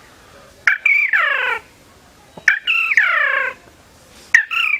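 A man imitating a parakeet's call with his voice: three harsh squawks about two seconds apart, each falling in pitch and starting with a sharp click.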